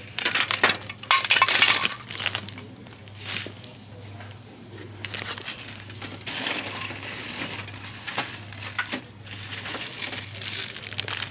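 Packaged Christmas ornaments being handled and taken from a shelf: rattling and light clinks, busiest in the first two seconds and again from about six seconds in.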